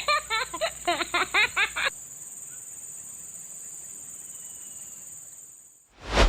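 Steady high-pitched drone of insects in the surrounding vegetation. In the first two seconds a quick run of rising pitched notes sounds over it, and near the end the sound dips briefly before a short loud thump.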